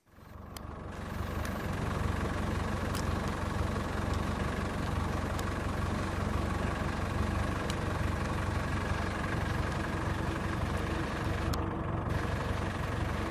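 A steady mechanical hum like an idling engine, fading in over about a second and then running on evenly with a low rumble, plus a few faint clicks.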